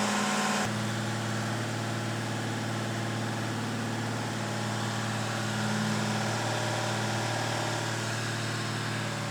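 Freshly built Mopar 440 big-block V8 running steadily at a raised idle during camshaft break-in.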